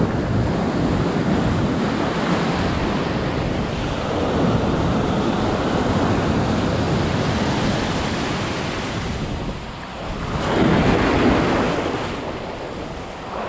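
Ocean surf breaking and washing up over a sandy beach in the shore break, a steady rush of foaming water. About ten seconds in it eases briefly, then a wave surges in loudest.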